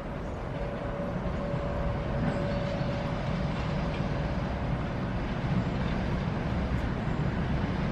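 Low rumble of an approaching SM42 diesel-electric locomotive, growing slowly louder. A faint steady tone fades out about five seconds in.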